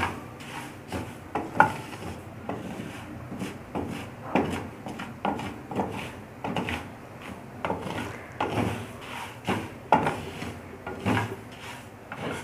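Wooden spatula scraping and stirring dry sabudana (tapioca pearls) in a metal pan as they are lightly fried. Rasping strokes come about once a second.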